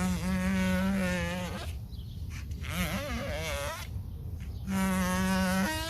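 Three long, wavering bleats from livestock, about a second and a half each, with short gaps between them.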